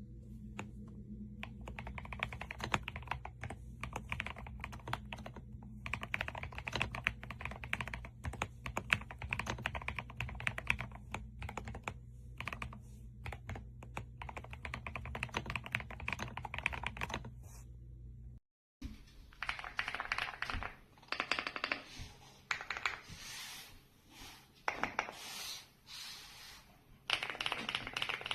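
Typing on a mechanical keyboard: a fast, continuous run of key clacks over a low steady hum. About eighteen seconds in it cuts to a second recording of typing in separate bursts, with no hum.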